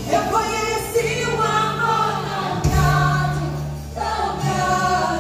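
Background music of a choir singing long held notes, with a short dip about four seconds in.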